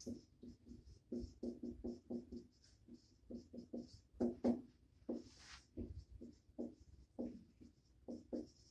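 Dry-erase marker writing on a whiteboard: a quick run of short squeaky strokes, several a second, as letters are written.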